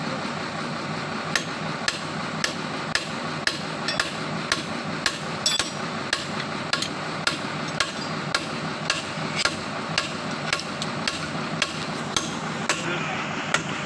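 Hand hammer striking in a steady rhythm, about two blows a second, over a steady background noise.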